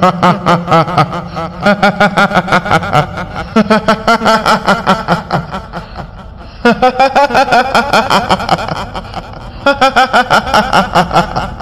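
Kuntilanak ghost's laugh as used in Indonesian horror: a high, rapid 'hihihi' cackle in four long runs with short breaks between them, over a low droning hum.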